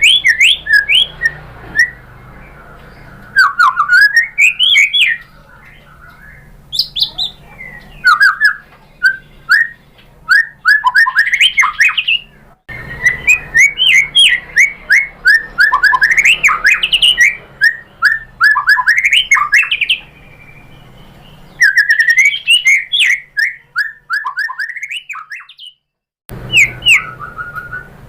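White-rumped shama singing: bursts of varied, quick whistled notes sweeping up and down, in phrases of one to three seconds with short pauses between. The song cuts off abruptly about halfway through and again near the end.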